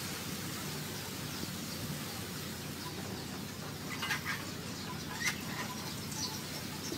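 Steady outdoor background hiss with a few brief bird chirps about four, five and six seconds in.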